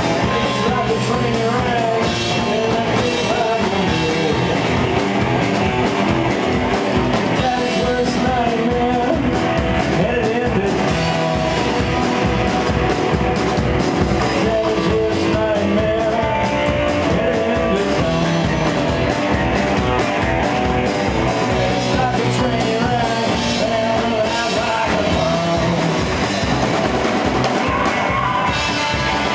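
Live rock and roll band playing: electric guitar, upright bass and drums keeping a steady beat, with a man singing into the microphone.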